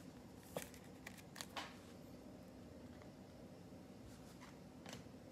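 Near silence with a few faint clicks and taps of trading cards being handled and set into display stands, several close together in the first couple of seconds and one near the end.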